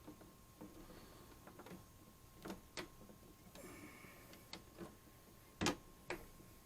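Scattered light clicks and taps of small mounting hardware and hand tools being handled, with one sharper knock near the end and a short scrape about four seconds in.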